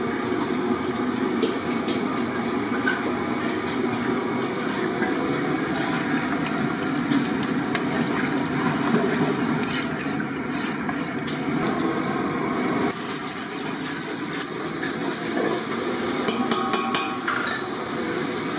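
Liquid pouring and sloshing as water is added to a steel pot of curry gravy and stirred with a ladle. About 13 seconds in, the sound drops to lighter handling with a few sharp metallic clinks.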